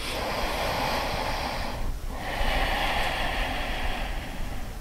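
Ujjayi breathing: two long, hissing breaths drawn through a narrowed throat, with a short pause between them about two seconds in.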